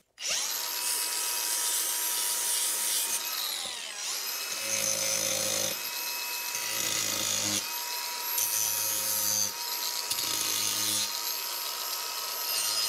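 Electric power tool running with a steady high motor whine. It slows and comes back up to speed about three seconds in. A lower, rougher sound then comes and goes every second or two, as the tool is worked against something.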